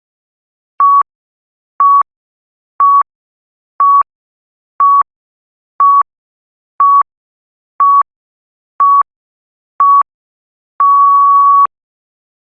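Electronic countdown beeps: ten short beeps at one steady pitch, one a second, ending in a single longer beep.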